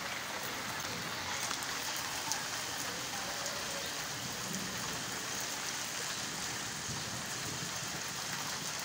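Steady rain falling on a concrete rooftop: an even hiss of splashing drops, with single drops ticking now and then.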